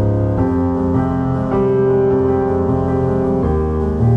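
Soft piano music: slow, held chords that change every second or two.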